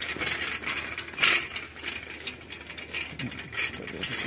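Old steel bicycle rattling and clicking as it is ridden over a rough gravel dirt road, its loose parts jolting on the bumps, with one sharper clack about a second in.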